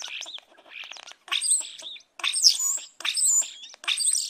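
Domestic chicks peeping: repeated short, high chirps that rise and fall in pitch, coming in several quick clusters.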